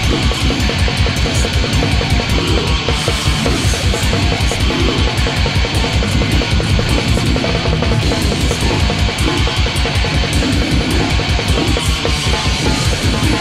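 Death metal played by a full band: heavily distorted guitars over a drum kit, with the bass drum hammering a fast, even pulse throughout.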